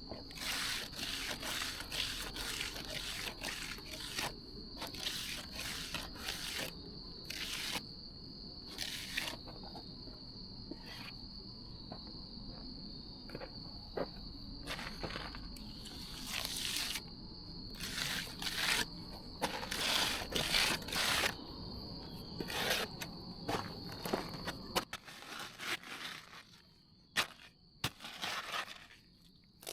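Hand trowel scraping across fresh concrete in repeated short strokes while finishing it, with crickets trilling steadily behind.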